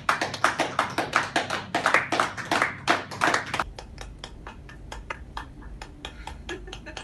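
A small group of people clapping, dense and loud. About three and a half seconds in it drops to quieter, sparser claps heard through a laptop's speaker from a video call, over a low hum.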